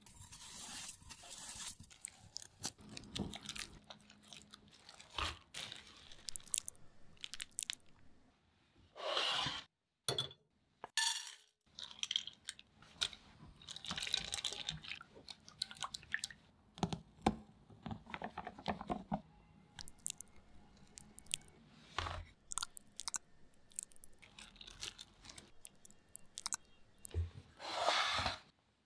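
Close-up kitchen handling sounds, short and irregular: granulated sugar pouring onto raspberries, a spatula stirring white chocolate chips and cream in a small pot, and utensils scraping and tapping.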